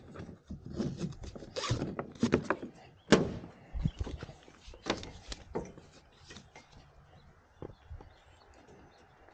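A kayak tie-down strap being taken off a trailer: webbing sliding and the strap's buckle knocking and clicking against the trailer and the plastic hull, several irregular knocks and rustles with the sharpest about three seconds in, then fainter clicks.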